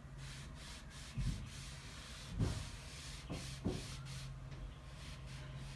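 Felt whiteboard eraser rubbed in quick strokes across a whiteboard, wiping off writing, with four short dull knocks along the way.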